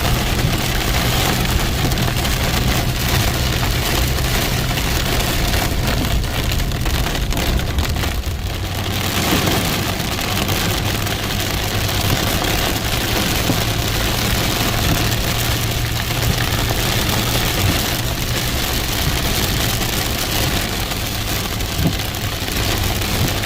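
Heavy rain falling steadily, with a vehicle engine idling underneath as a low, steady hum.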